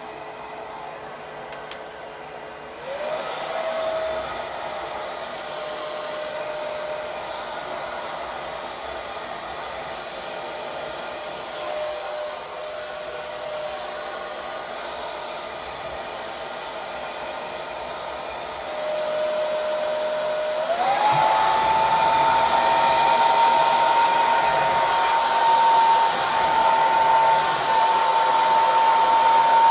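Unix Super D+ hair dryer running: a steady rush of air with a motor whine. The whine steps up in pitch and loudness about three seconds in, and again more sharply near the end, as the dryer goes up to higher speed.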